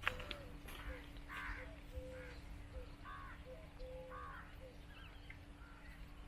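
Birds calling in the open: short arched calls repeating about once or twice a second, faint, with a faint steady hum underneath from about a second in.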